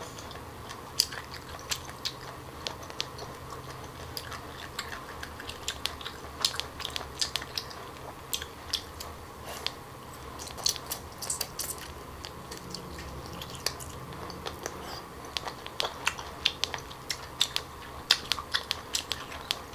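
Close-miked chewing and biting of cooked octopus tentacle pieces: a run of short, crisp clicks and crackles from the mouth, coming in clusters.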